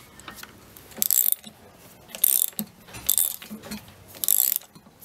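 Socket ratchet clicking in four short runs about a second apart as the freed sprocket nut is wound off the rear roller shaft.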